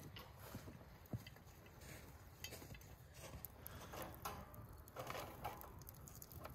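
Faint, soft handling sounds of a wet lacy lamb stomach membrane being lifted and spread out on a table: scattered short rustles and a few light taps over a low steady rumble.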